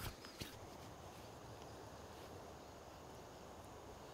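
Faint, steady outdoor background noise, with two small clicks near the start.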